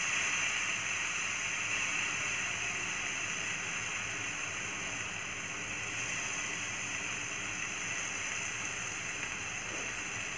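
Steady soft hiss of oil and spices still sizzling in a hot nonstick pan of fried green chillies with the gas turned off, easing slightly as the pan cools.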